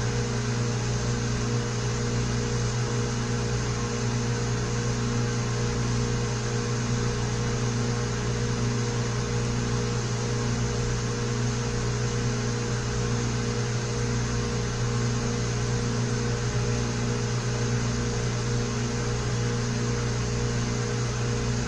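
Milling machine's electric motor running with a steady hum while it cuts a Woodruff keyseat in a steel shaft.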